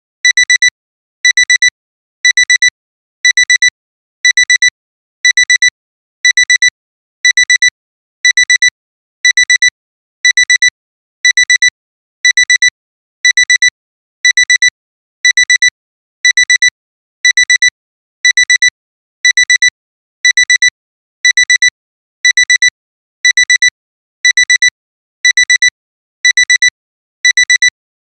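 Alarm clock alarm beeping: a high electronic tone in quick clusters of short beeps, repeating about once a second.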